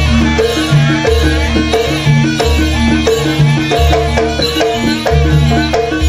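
Live jaranan dance music: an ensemble of drums and tuned percussion playing a fast, even rhythm, with a deep bass note repeating about every second and a half.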